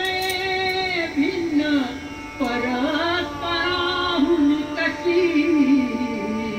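Devotional singing: a single voice holding long notes that slide up and down, with only short breaks.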